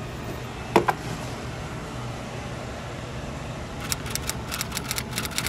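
Steady low hum of a small freezer's refrigeration condensing unit running. A sharp knock comes about a second in, and a quick run of sharp clicks near the end.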